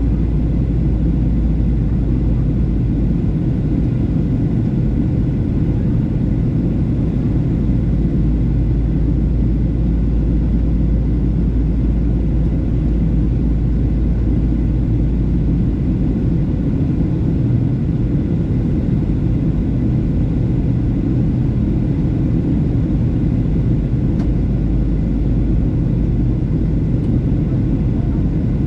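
Steady in-cabin roar of a Boeing 737-700 in flight after takeoff: its CFM56-7B turbofans and the rush of air over the fuselage, a loud low rumble with a faint steady hum above it.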